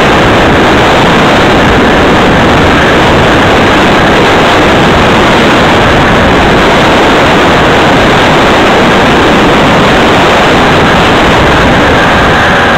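Loud, steady wind noise rushing over the microphone of a camera moving along a road.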